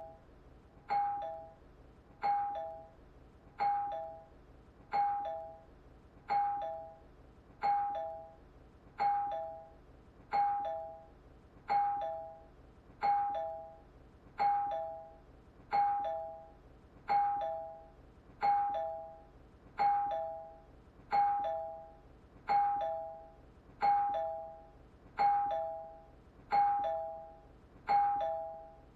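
Two-tone ding-dong doorbell chime ringing over and over, a higher note then a lower one, repeating at an even pace of about three chimes every four seconds, each note sharp at the start and fading.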